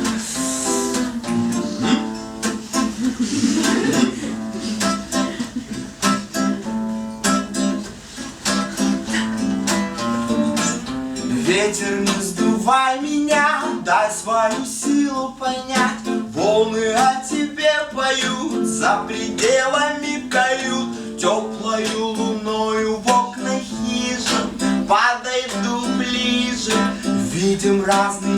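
Acoustic guitar strummed steadily. From about halfway, a voice sings a melody over it.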